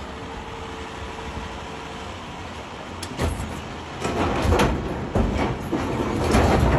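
Heavy machinery, an excavator at work: a steady rumble, then from about three seconds in a run of loud, irregular clanks and knocks.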